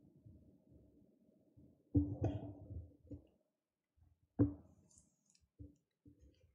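Handling noise at a lectern and its microphone: two dull knocks about two and a half seconds apart, each with a short ringing tone, then a few lighter clicks near the end.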